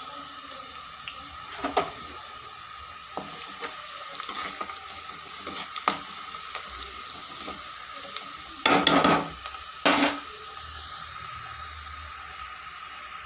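Sliced onions, green chillies and garlic sizzling in hot oil in a coated kadhai, with a metal spatula stirring and scraping against the pan. Two louder scrapes come about two-thirds of the way through.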